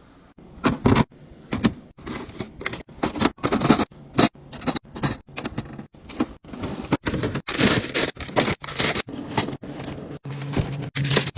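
Packaged food and containers being handled and set into a fridge: plastic packaging rustling and crinkling, containers knocking and scraping on shelves, in short snippets with abrupt cuts between them. A low, steady hum comes in about ten seconds in.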